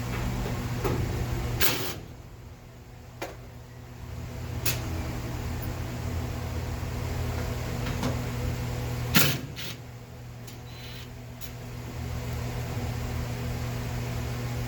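Sheet-metal furnace panel and its screws being worked loose and handled, giving a few sharp clicks and knocks. A steady low mechanical hum runs underneath.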